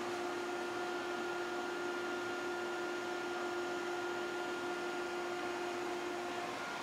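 Steady machine hum: a low tone with two higher tones above it, over a faint hiss.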